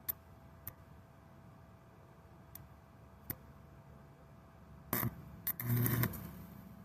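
Faint taps, then a welder's arc striking in two short crackling bursts with a low buzz about five and six seconds in, sputtering out between them.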